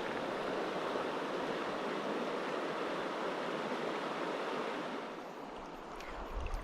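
Steady rush of flowing river water. It eases a little about five seconds in, and a few faint clicks come near the end.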